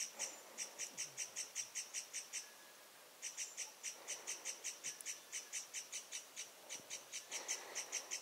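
A repeated high chirp from a wild creature, about five chirps a second, pausing briefly about two and a half seconds in and then going on.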